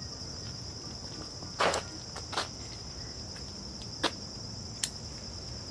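Scissors snipping through sage stems, four short sharp snips with the first the loudest, over a steady high-pitched chirring of insects.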